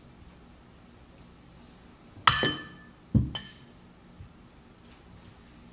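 Glass altar cruets clinking, glass against glass: two sharp clinks about a second apart, each ringing briefly, the second with a duller knock, then a few faint ticks.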